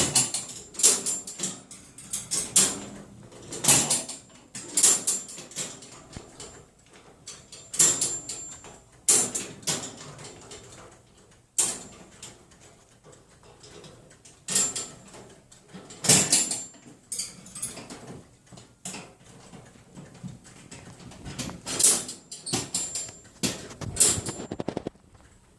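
Metal cage doors banged repeatedly by a pet playing on the cage: sharp knocks and clangs at irregular intervals, many with a high metallic ring. A quieter spell comes about two-thirds of the way in, and a quick rattle follows near the end.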